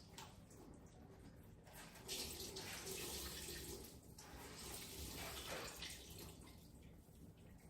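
Water running and splashing faintly, in two stretches of about two seconds each, starting about two seconds in.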